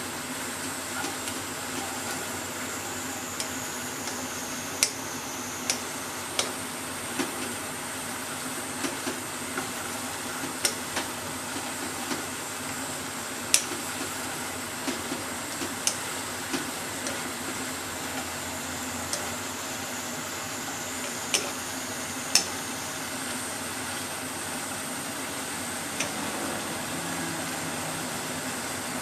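Bacon and eggplant slices sizzling steadily in a pot while being stirred with wooden chopsticks, with irregular sharp clicks of the chopsticks striking the pot.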